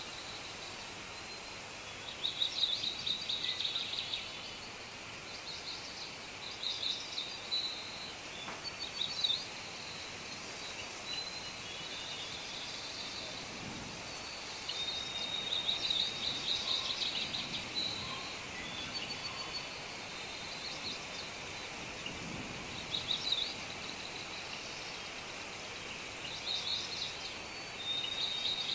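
Nature ambience of small songbirds singing short, high chirping and trilling phrases every few seconds over a steady background hiss.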